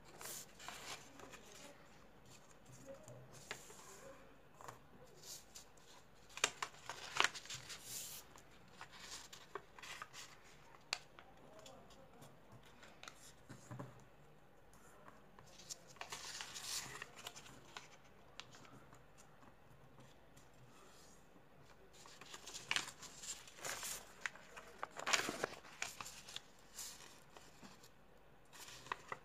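A sheet of paper being folded and creased by hand: rustling and sliding with sharp crinkles as the folds are pressed flat, in bursts several times with quiet pauses between.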